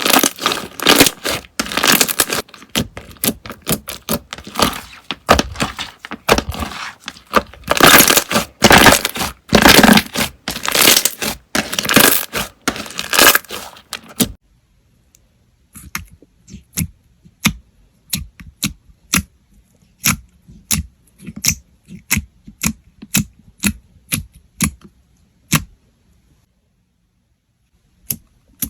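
Crunchy slime being squeezed and stretched by hand, giving dense, loud crackling and tearing sounds. About halfway through it switches to a quieter run of separate sharp pops, roughly two a second, as slime is pressed.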